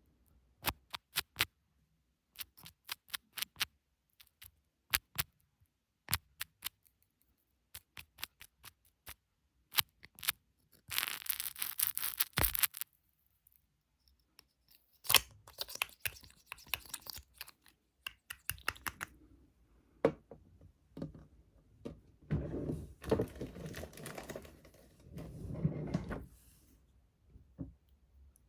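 Close-miked ASMR tapping and scratching: quick groups of sharp taps, a burst of scratching about eleven seconds in, more taps and scratches, then a softer rubbing near the end.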